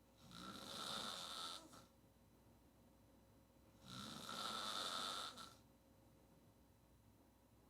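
A woman snoring on her back with her mouth wide open: two long, hissing snores about three and a half seconds apart, each lasting about a second and a half, with quiet breathing between them.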